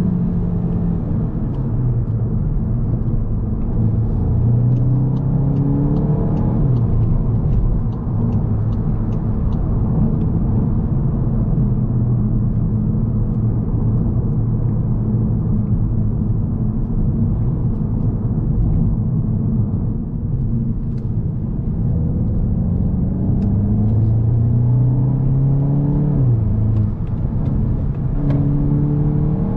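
Cabin sound of a 2021 VW Golf GTI Mk8's turbocharged 2.0-litre four-cylinder driving on the road. The engine pitch rises under acceleration and drops sharply at quick DSG upshifts, once early on and twice near the end, with steadier cruising and road noise in between. A run of light, evenly spaced ticks sounds a few seconds in.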